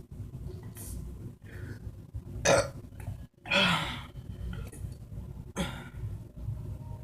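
A woman burping several times: two loud burps about two and a half and three and a half seconds in, the second one drawn out, then a shorter one near the end.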